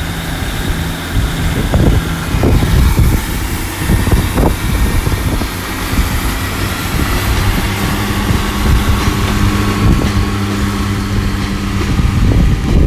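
A Class 150 and a Class 143 Pacer diesel multiple unit pulling away, their underfloor diesel engines running under power with a steady drone, with wheel and track noise.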